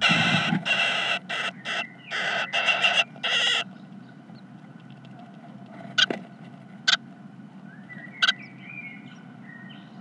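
Great tits in a nest box: a run of loud rustling, scrabbling noises over the first three or four seconds as the second adult comes in through the entrance hole. Then three sharp taps, a second or so apart, and faint high chirps near the end.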